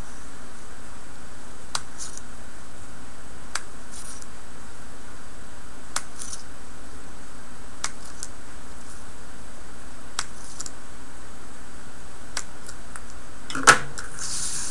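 Scissors snipping through black cardstock to cut weaving strips free: six sharp snips about two seconds apart, each followed by a brief papery rustle, over a steady hiss. Near the end a louder knock with paper rustling as the cut strips are handled.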